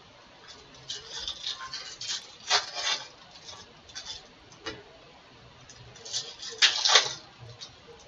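Foil wrappers of Bowman baseball card packs crinkling and tearing as the packs are ripped open, with cards handled and shuffled in between. The loudest crackles come about two and a half seconds in and again near seven seconds.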